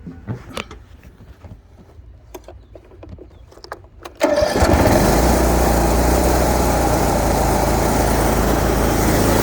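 Big Dog C142 zero-turn riding mower's engine starting: a few light clicks, then the engine catches suddenly about four seconds in and runs steadily.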